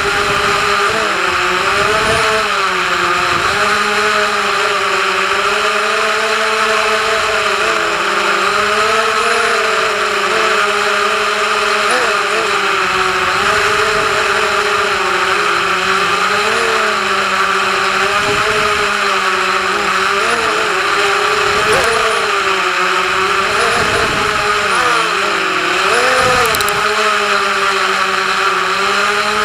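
FPV quadcopter's electric motors and propellers buzzing steadily and loudly, the pitch wavering up and down as the throttle changes.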